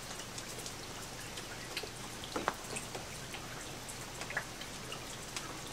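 Light patter of scattered water drops over a steady hiss, the clearest drops about two and a half seconds in and again near the end.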